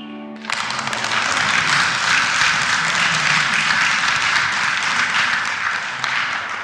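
The final held chord of a flute, cello and piano trio breaks off about half a second in, and a small audience bursts into applause.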